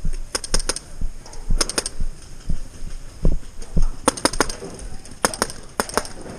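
Paintball markers firing in short rapid strings of three to five shots, several times over. A couple of dull thumps, the loudest sounds, come around the middle.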